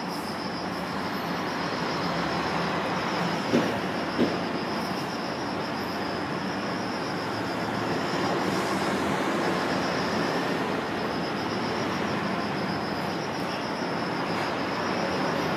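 Insects trilling steadily at a high pitch over a constant rumbling background noise, with two brief sounds about three and a half and four seconds in.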